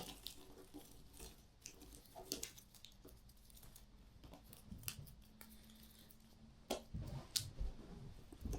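Faint handling noises of cardboard puzzle pieces: scattered light clicks and taps, with a cluster of louder clicks in the last couple of seconds.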